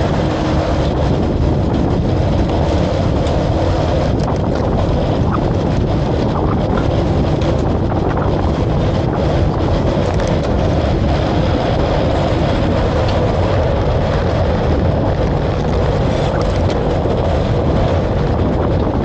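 Steady wind buffeting on the microphone over a constant rumble of movement at speed, with faint scattered ticks.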